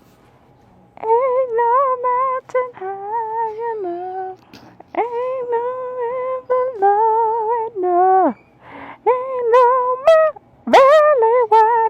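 Wordless solo singing of a melody in a high voice: long held notes with a slight vibrato, starting about a second in and broken into short phrases by brief pauses.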